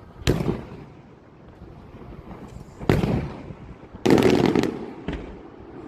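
Festival fireworks exploding: a loud bang, another about two and a half seconds later, then a rapid volley of reports lasting about half a second some four seconds in, and a smaller bang just after. Each report trails off in an echo.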